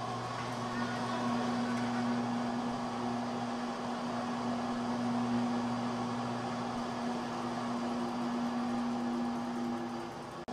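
Small electric motors of a grid of motorized umbrellas running together, a steady mechanical hum with a low whirring tone; the hum fades shortly before the end.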